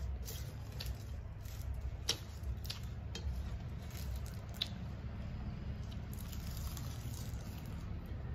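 Fingers kneading and mixing cooked rice with fried neem leaves on a steel plate: soft wet squishing, with a few small sharp clicks against the plate scattered through, over a steady low hum.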